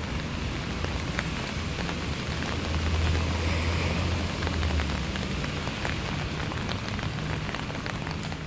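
Steady rain falling on a puddle and wet pavement: an even hiss dotted with small drop ticks, under a low rumble that is loudest from about three to five seconds in.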